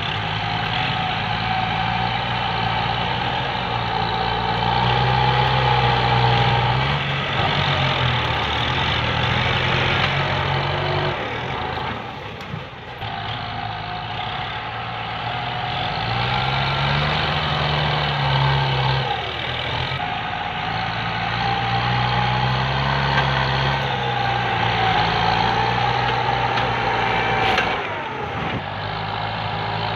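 Kubota tractor's diesel engine working under load as it pushes brush and soil with a front blade, its pitch rising and falling with the load. A steady high whine rides over the engine. The sound drops out briefly about twelve seconds in and again near the end.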